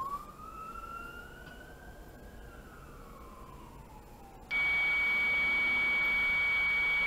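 Fire apparatus siren in a single slow wail, rising and then falling away over about four seconds. Then, about four and a half seconds in, a much louder steady horn-like tone starts suddenly and holds.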